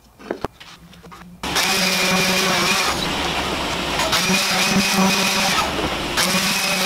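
A few light knocks, then about a second and a half in a random orbit sander with a dust-extraction hose switches on and runs steadily. It eases briefly near the end.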